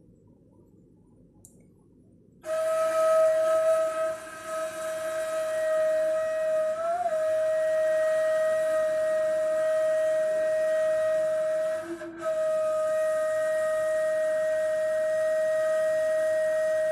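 Ney, an end-blown cane flute, starting about two and a half seconds in and holding one long steady note. The note wavers slightly in pitch once and dips briefly later on before carrying on.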